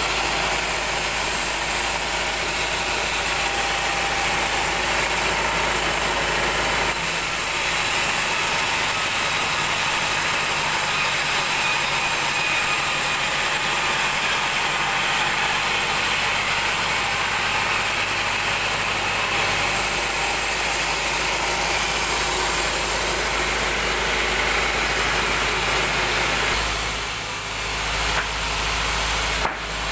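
36-inch band sawmill running and ripping a large mahogany plank: a steady, even machine noise with a low motor hum under it, dipping briefly near the end.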